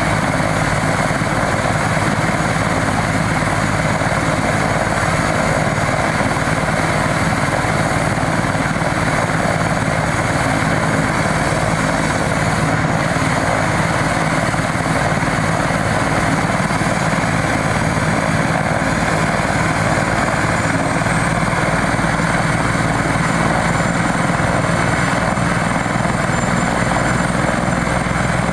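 Eurocopter EC145 twin-turbine helicopter running on the ground with its main and tail rotors turning, a loud, steady rotor and turbine noise.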